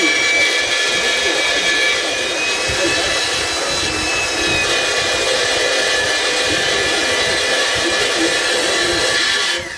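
Corded electric hand drill running at a steady high speed as it bores a hole through a steel plate, its motor giving a constant whine. Near the end the trigger is released and the whine falls away as the motor spins down.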